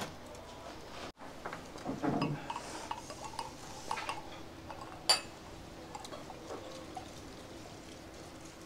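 Glassware handling: a click as a wine glass touches down at the start, then two wine glasses with ice clinked together in a toast about five seconds in, with a short bright ring.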